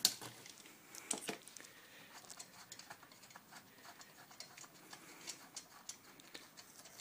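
Quiet, irregular light clicks and taps of metal parts and tools being handled on a pit bike engine during teardown, with a small cluster of sharper clicks about a second in.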